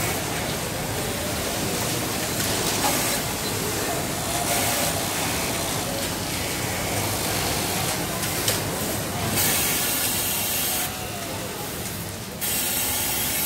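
Three-needle feed-off-the-arm industrial sewing machine stitching heavy denim, running in several short bursts, over a steady haze of factory noise.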